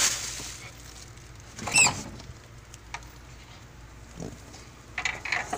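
A cornered rat squeaking once, a short high-pitched wavering squeal about two seconds in, while a dog hunts it; short scuffling noises come before and near the end.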